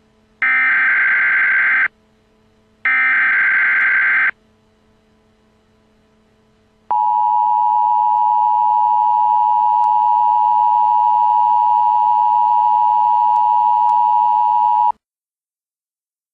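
Two buzzing electronic tones, each about a second and a half long, then a steady test tone of the kind played with colour bars, held for about eight seconds before it cuts off suddenly.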